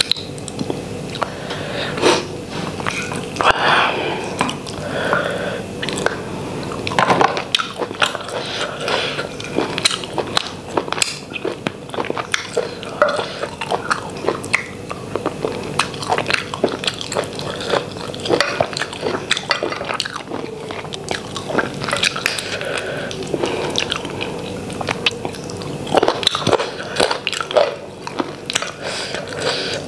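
Close-miked chewing and biting as a person eats chicken curry with her fingers, many short wet mouth clicks following one another unevenly.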